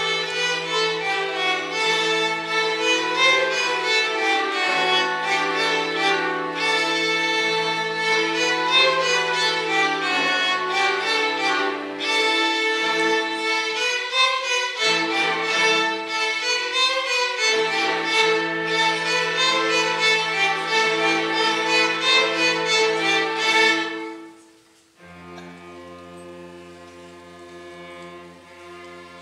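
Youth string orchestra playing a loud, busy passage led by the violins, which stops sharply about four fifths of the way in; after a brief pause the orchestra goes on softly with long held chords.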